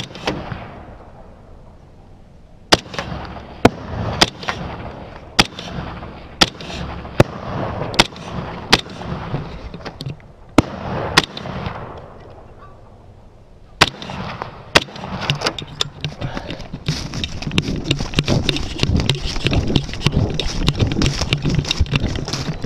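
Rifle shots: a sharp crack at the start, then about a dozen more sharp cracks loosely spaced about a second apart, with noise between them. In the last several seconds a dense, rough rustling grows.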